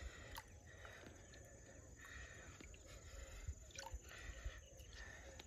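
Near silence: a faint low rumble with a few soft clicks and small water sounds as hands work a fish free of a cast net in shallow water.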